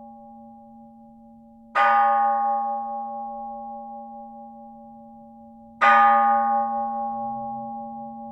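A Buddhist temple bell struck twice, about four seconds apart, each strike ringing on with a slowly fading hum that carries on under the next strike.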